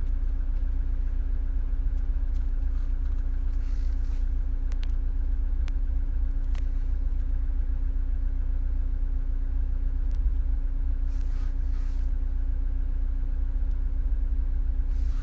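Car engine idling, heard from inside the cabin: a steady low hum with a steady droning tone over it, and a few faint clicks.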